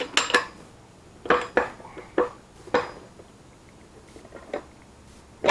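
Pliers clinking against the steel bearing cap and yoke of a driveshaft universal joint as the rusted cap is gripped and worked out. A series of sharp metallic clinks with brief ringing, a few fainter ones, and a sharper clink at the end.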